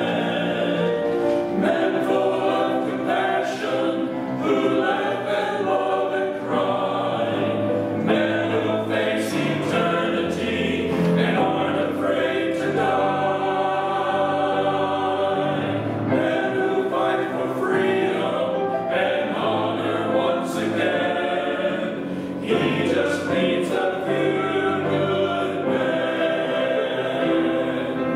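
Small men's choir of about eight voices singing together, accompanied by a grand piano.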